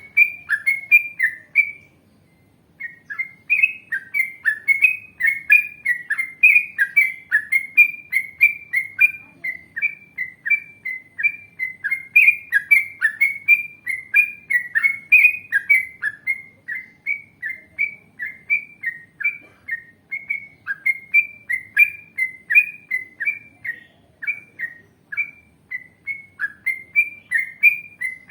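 Yellow-vented bulbul (trucukan) singing a long, unbroken run of short, clear notes, about three a second, with a brief pause about two seconds in. A faint high twittering comes and goes behind it.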